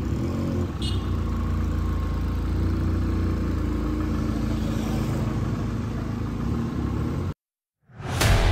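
Vehicle engine idling steadily at street level, with a short high chirp about a second in. The sound cuts off suddenly about seven seconds in, and a loud burst of sound starts just before the end.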